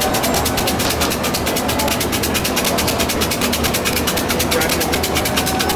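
Kau cim fortune sticks rattling in cylinders being shaken, a fast, even clatter, over the murmur of people's voices.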